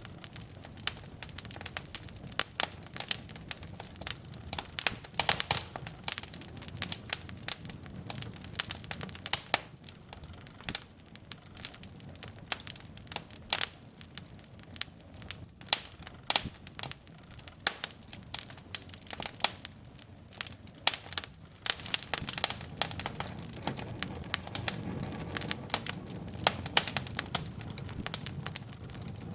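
Wood logs burning in a fireplace, crackling with many irregular sharp pops over a low, steady rumble of flame.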